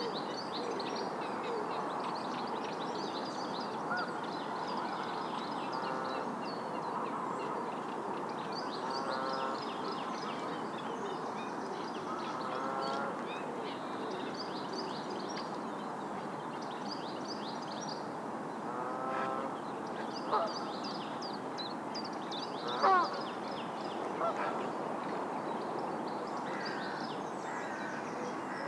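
Lakeside morning ambience: geese honking now and then, loudest about two-thirds of the way in, with small birds chirping high throughout over a steady background hiss.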